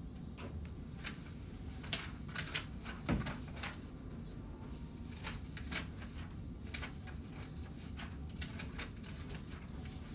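Scattered light clicks and taps at an uneven pace, with a few sharper knocks about two and three seconds in, over a steady low room hum.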